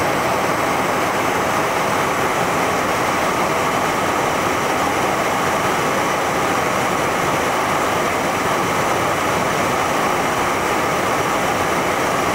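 Cabin noise inside a Learjet 55 on landing approach: a steady, even rush of airflow and its twin rear-mounted Garrett TFE731 turbofans, with no change in pitch or level.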